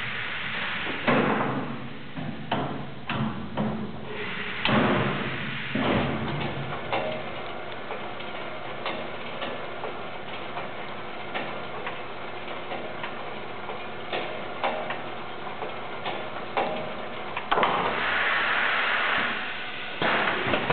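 Automatic pallet dispenser at work: a run of clanks and knocks as the mechanism releases a wooden pallet and sets it down, then lighter ticks over a steady machine hum. Near the end comes a burst of hiss lasting about two seconds.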